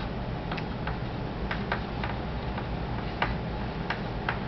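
Chalk tapping and scratching on a chalkboard in short, irregular strokes while a word is written, over a steady low room hum.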